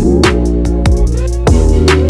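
Electronic background music: drum hits over deep bass and synth lines that glide in pitch.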